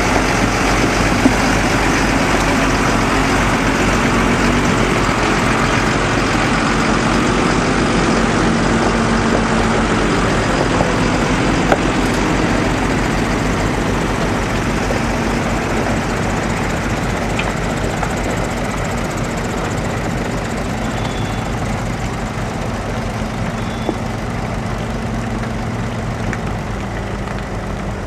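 Heavy diesel engines of a big farm tractor and an articulated lorry running steadily, the sound slowly getting quieter over the second half.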